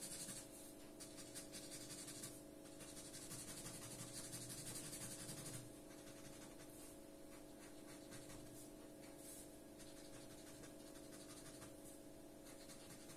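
Pen tip scratching on watercolour paper, rubbing in quick short strokes to fill in a solid black area. The strokes are denser for the first five seconds or so, then go on more softly.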